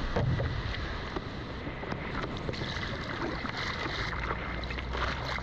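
Ocean water sloshing and splashing close around a surfboard, with small scattered ticks.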